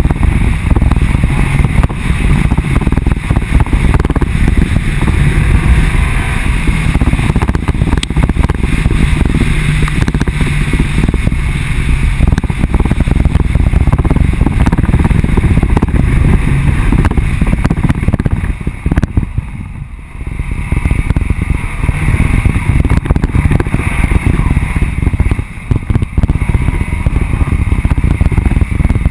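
Off-road vehicle driving fast on a dirt road: a dense rumble of engine, tyres on dirt and wind rush on the low-mounted camera. The sound eases off briefly about two-thirds of the way through, then comes back.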